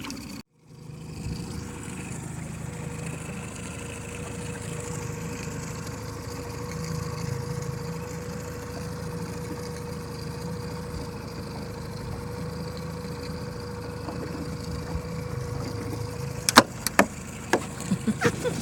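Boat engine running steadily, with several sharp knocks near the end.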